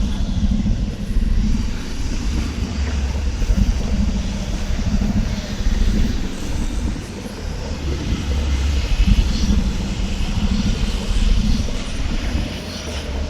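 Hell ambience sound effect: a continuous heavy low rumble with a dense rushing noise over it, swelling and easing without any clear beat.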